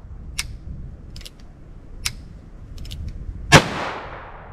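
A single shot from a Heritage Rough Rider single-action .22 revolver firing .22 Magnum, about three and a half seconds in, with a long ringing echo fading away after it. A few faint sharp clicks come before the shot.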